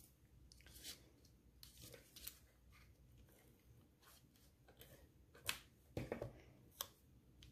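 Faint rustling and light taps of cardstock being handled and a tape runner laying adhesive on a paper strip, with a few sharper clicks in the second half.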